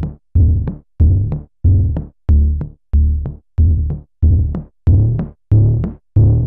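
Electronic music on a drum machine and synthesizer: a deep bass note pulses about one and a half times a second, each note cut off short, with a sharp click on every beat.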